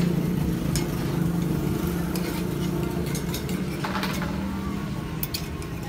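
Steady hum of a motor vehicle engine, slowly fading, with a few light clinks of a metal utensil against the kue balok molds.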